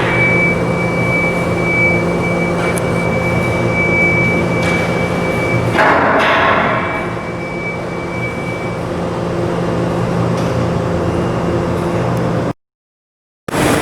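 Heavy machinery running steadily, a low hum with a thin high whine over it and a few light knocks. The sound cuts out abruptly for about a second near the end.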